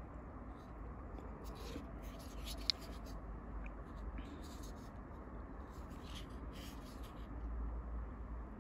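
Short scratchy rustles of hands handling a Spyderco Military folding knife, with one sharp click a little under three seconds in.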